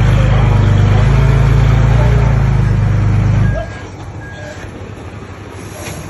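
Heavy diesel engine of earth-moving machinery running loud and steady, then the sound drops off abruptly about three and a half seconds in, leaving a much quieter rumble.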